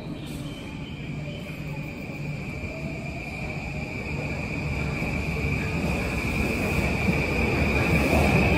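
JR East E235 series 1000-subseries electric train pulling out and accelerating. A steady high whine carries through, and a lower tone rises slowly as the train picks up speed. Rolling noise builds and the whole sound grows steadily louder.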